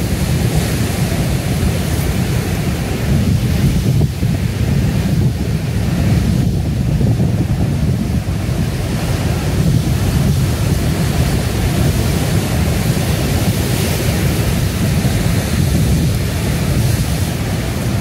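Heavy ocean surf breaking and foaming over rocks: a steady, deep rumble of crashing waves that never lets up.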